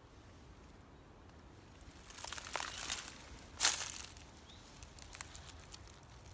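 Footsteps crunching through dry fallen leaves: a few crackling steps starting about two seconds in, the loudest a little past halfway.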